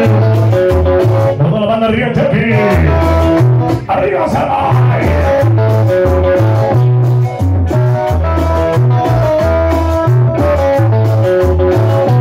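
Loud Latin dance music played over a sonidero sound system, with a bouncing bass line and guitar.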